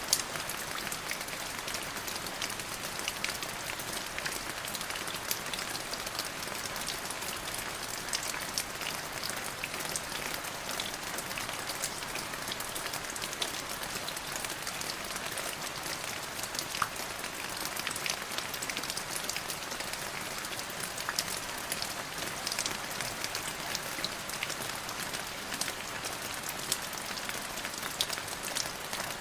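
Steady rain falling on a surface, with many individual drops ticking through an even hiss.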